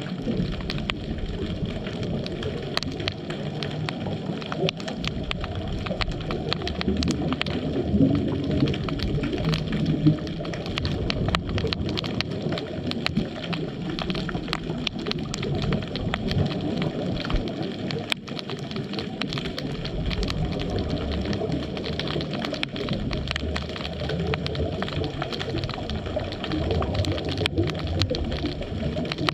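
Underwater ambience picked up through a camera's housing: a steady muffled low water noise with a constant scatter of faint crackling clicks.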